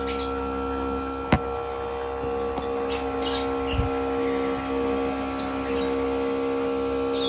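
Compressor nebulizer running with a steady electric hum. A single sharp knock about a second in.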